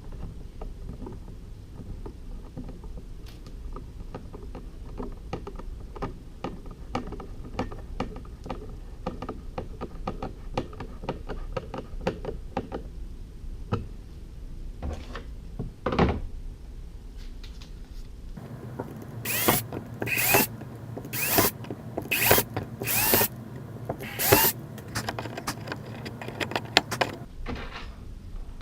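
Hand tools working the seat's knuckle-plate fasteners: a long run of fine, rapid clicking like a ratchet wrench, a single sharp knock, then about ten loud, short rasping strokes in quick succession.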